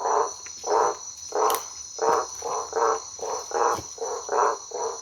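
Frogs calling at night: short croaking calls repeated about two a second, over a steady high trilling of insects.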